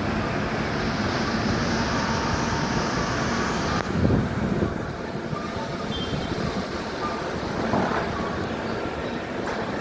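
Pneumatic offal conveyor running: a steady rush of compressed air that cuts off suddenly about four seconds in with a loud low thump, followed by a duller machine noise.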